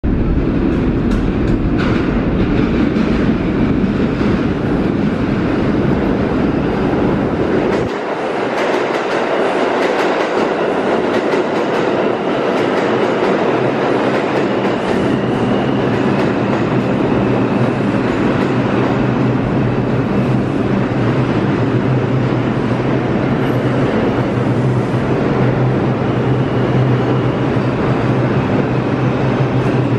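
New York City Subway R142 train pulling into an underground station. Its wheels clatter over switches and rail joints as it enters. From about halfway it settles into a steady hum with a faint high whine as it slows and stands at the platform.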